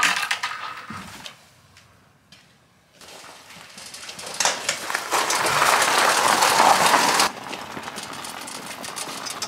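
A shed door clatters open, then the homemade toy tractor's tyres crunch over gravel and paving as it is pulled out by hand with its engine off. The crunching is a steady noise that grows louder and stops abruptly, followed by softer rolling as the tractor is pushed along.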